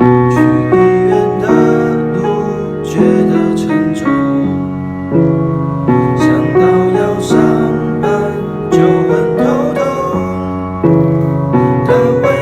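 Background music led by piano, with chords changing every second or so.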